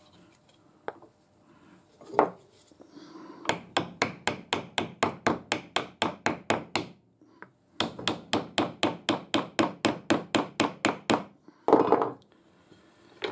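Hammer tapping on a hardwood block to drive a greased bearing into a lathe live centre's housing: two runs of quick light taps, about five a second, with a short pause between. A single knock comes before the runs and a clunk near the end.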